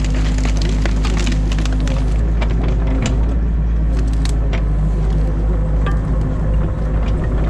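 Excavator's diesel engine running steadily, heard from inside the cab, while branches and sticks in a beaver dam crack and snap repeatedly as the bucket tears them out.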